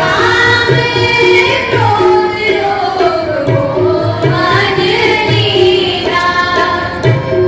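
Girls' voices singing a Sikh shabad (devotional hymn) together to a harmonium's held chords, with tabla strokes keeping a steady beat.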